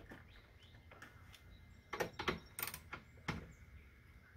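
A few sharp metallic clicks and clinks from a 10 mm socket tool on the coolant reservoir's mounting bolts: a cluster about two seconds in and one more a second later.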